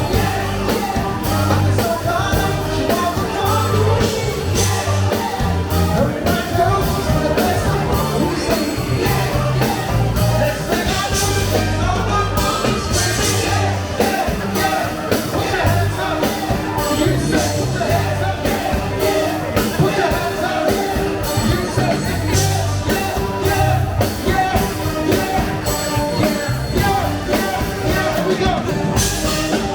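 Live funk, R&B and soul band playing a song with a steady drum beat and a pulsing bass line, with singing over it.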